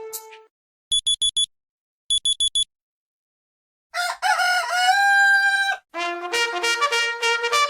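Phone alarm tones from a Huawei G Play Mini played one after another: two quick sets of four high electronic beeps, then a recorded rooster crow about four seconds in, then a trumpet melody starting about six seconds in.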